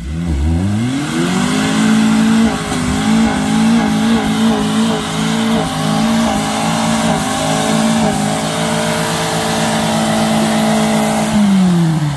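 Suzuki Samurai's four-cylinder engine revving up in the first second or so and held at high revs during a mud climb, its pitch wavering slightly, then dropping off near the end as the driver lifts off.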